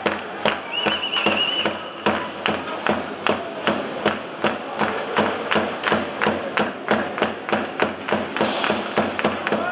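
Ice hockey fans beating a drum in a steady, fast rhythm of about four beats a second, with crowd voices underneath.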